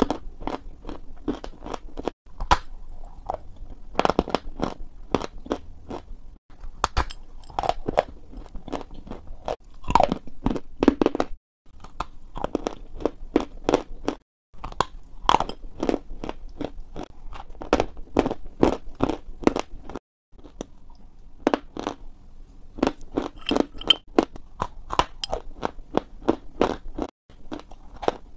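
Close-miked biting and chewing of crunchy pale blocks of dessert: dense, sharp crunching in quick runs, broken by several abrupt short silences.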